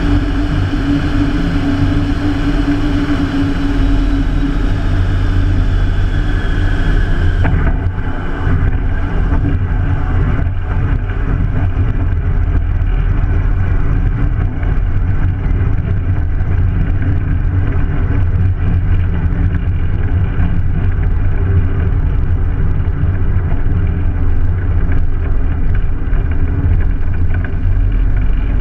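Rotec R3600 nine-cylinder radial engine of a biplane running at low power as the aircraft rolls on grass, a steady low drone. A hiss over it cuts off suddenly about seven seconds in.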